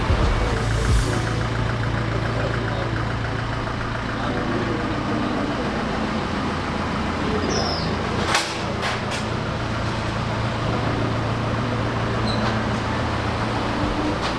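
Steady rumble of road traffic or a running vehicle, with a low hum throughout and a few sharp clicks a little past the middle.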